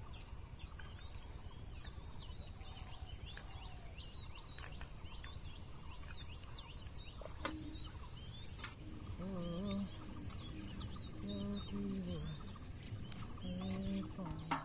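Small birds chirping and singing continuously, with several short low-pitched sounds coming in from about nine seconds in.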